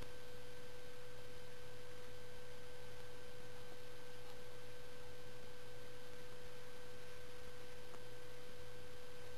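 A steady, unchanging high-pitched electrical whine with a fainter overtone, over a low hum and faint hiss.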